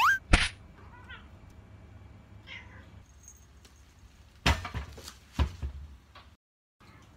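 Munchkin cat giving a short meow that rises in pitch right at the start, with fainter calls after it. Several knocks and thumps close by, the loudest about four and a half and five and a half seconds in.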